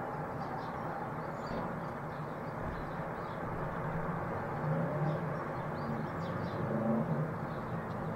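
A1 Pacific steam locomotive Tornado working at a distance, a steady low rumble that swells in the second half. Small birds chirp faintly over it.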